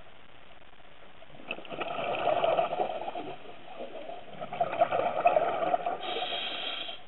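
A scuba diver exhaling through a regulator underwater: two bursts of bubbles, each about two seconds long, the first about a second and a half in, over a steady faint hiss. A brief steady high tone sounds near the end.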